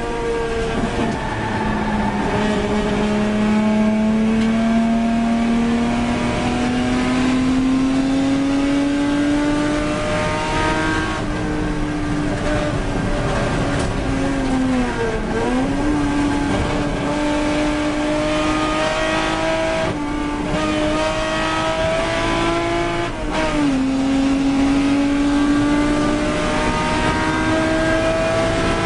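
Mk3 Ford Capri race car's engine heard from inside the cockpit under hard acceleration, its pitch climbing steadily through the gears. There is an upshift about a second in, a quick dip and recovery in revs around halfway, and another upshift about three-quarters of the way through.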